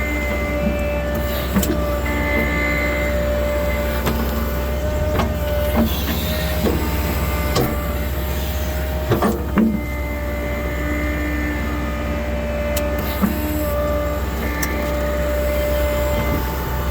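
Case 580 Super N backhoe's diesel engine running steadily with a constant whine over it, and a few sharp knocks scattered through.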